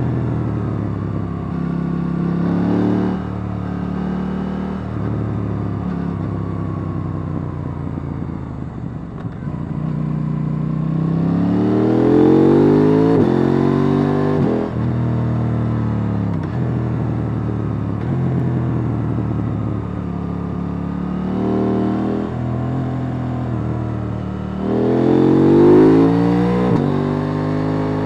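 KTM 890 Duke R's parallel-twin engine pulling through the gears. Its revs rise and fall again and again, with two hard accelerations, one around halfway and one near the end, each cut off by a sudden drop in revs as the throttle closes or a gear is changed.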